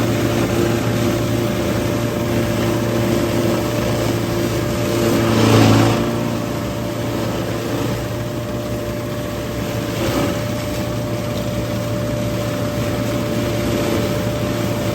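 Tractor engine and flail mower running steadily while mowing the field edge, a constant hum that swells briefly louder about five seconds in.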